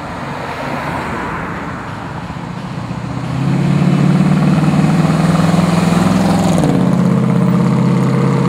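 The 1972 Pontiac GTO's 455 big-block V8 with dual exhaust driving past, growing loud about three seconds in with a deep, steady engine note. The note drops in pitch about two-thirds of the way through as the car goes by and pulls away.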